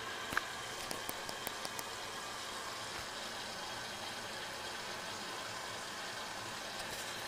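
Bosch front-loading washing machine running, with a steady hiss of water being drawn in. About half a second in comes a quick run of sharp clicks, the first the loudest.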